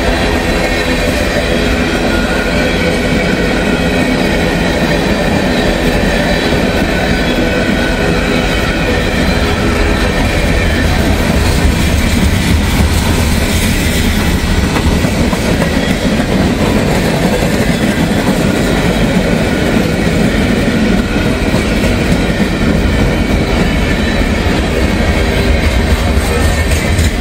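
Freight train cars rolling past: a steady, loud noise of steel wheels running on the rails.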